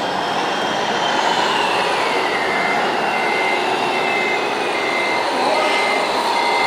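RC model trucks' electric drive motors and gearboxes whining steadily, one whine falling in pitch about two seconds in. From then on, a short electronic beep repeats a little more often than once a second.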